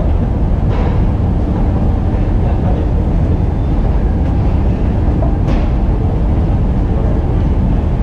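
Steady low rumble of a metro station, heard while riding an escalator, with a couple of faint brief clicks, one about a second in and one later.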